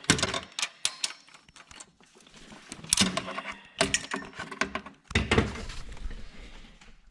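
Metal clicks and clanks of a socket wrench on a Subaru cylinder head bolt, in irregular clusters, as the bolt is angle-tightened a quarter turn.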